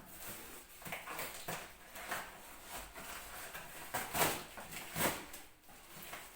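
Irregular rustling and light handling noises as melamine dishes are handled and unwrapped, with a couple of louder rustles about four and five seconds in.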